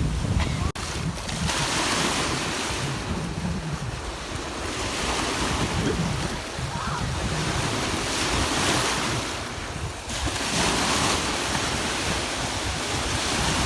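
Ocean surf: waves breaking and washing up the beach, the hiss swelling and fading every few seconds, with wind buffeting the microphone.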